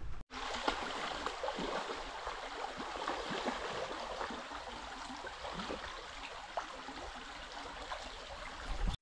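River flowing, a steady gurgling babble of water with many small trickles and splashes, cutting in just after a brief dropout at the start.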